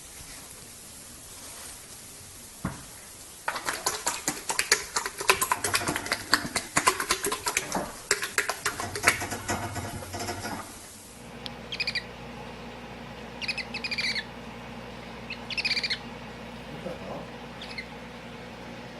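Animal calls: a fast, dense run of clicking chirps lasting several seconds, then a few separate short high chirps that fall in pitch.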